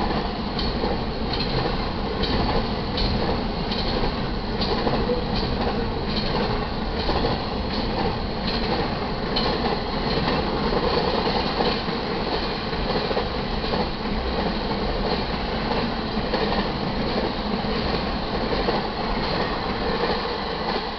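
Double-stack intermodal freight cars rolling past at speed: a steady rumble and rattle, with the wheels clicking over the rail joints.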